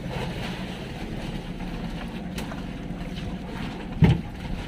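Boat engine running steadily, a low even hum, with wind and water noise around it; a single knock about four seconds in.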